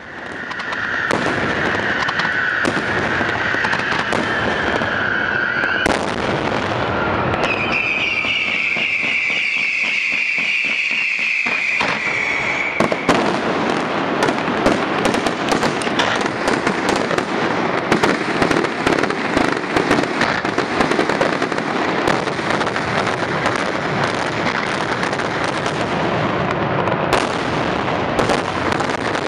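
Daytime fireworks going off in rapid succession. A long whistle sounds over the bangs for about six seconds, then a higher, wavering whistle for about five more. From about thirteen seconds in, the bangs and crackling become a dense, continuous barrage.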